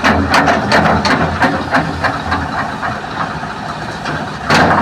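A heavy diesel engine runs steadily, with a quick run of short, sharp hissing or clanking bursts over the first couple of seconds and one louder burst near the end, as the excavator is worked on or off the truck.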